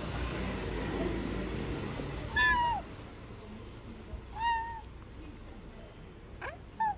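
A cat meowing three times: two longer meows about two seconds apart, each rising and falling, then a short one near the end.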